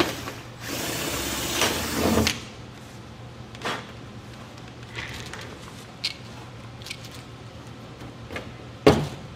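Pneumatic pop-rivet gun hissing with air for under two seconds about a second in as it pulls a rivet into a cowling hinge, followed by a few light clicks and one sharp click near the end.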